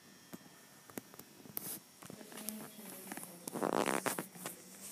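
Scattered small clicks and rustling, with a short rasping scrape about three and a half seconds in.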